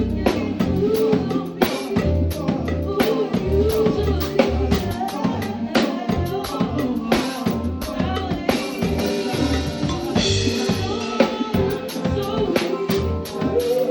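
Live band playing: a drum kit keeps a steady beat with kick, snare and rim clicks under a bass line and pitched instruments.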